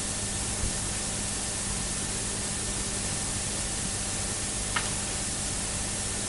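Steady hiss of an old recording with a faint low hum while the hall is quiet, and one short faint click a little under five seconds in.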